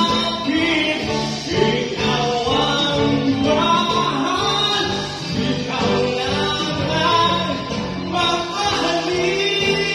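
A man singing into a microphone through a PA, over amplified band accompaniment.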